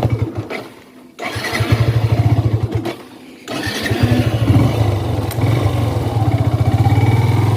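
Motorcycle engine running with a steady low putter. It drops away twice, once about half a second in and again around three seconds in, and picks up again each time.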